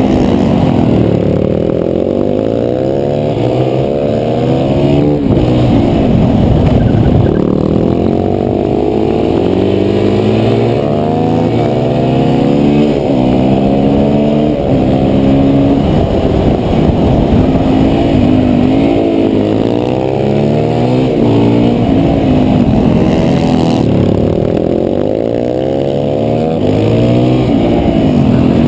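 KTM 525 supermoto's single-cylinder four-stroke engine, heard close from the onboard camera, revved hard through the gears and backed off again, over and over. The pitch climbs in steps as it pulls out of corners and along the straights, then falls away as the throttle shuts for the next bend.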